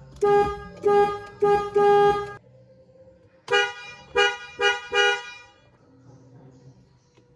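A car horn honking in two runs: four honks, the last two nearly joined, then after about a second's pause a quicker run of shorter honks.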